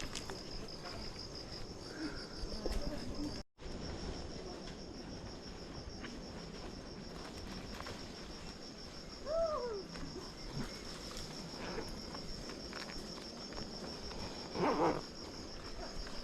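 Steady, high-pitched insect chorus with a rapid pulsing trill, cutting out briefly about three and a half seconds in.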